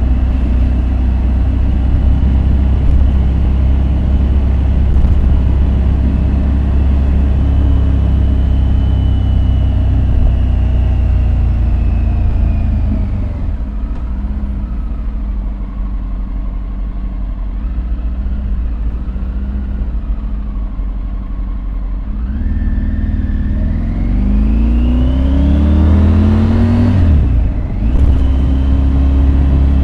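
Triumph Tiger 850 Sport's 888 cc inline-three engine on the move: steady running at speed, the revs falling away a third of the way in, a quieter stretch at lower revs, then a rising rev under acceleration, cut briefly by a gearshift near the end before it settles at a steady pitch.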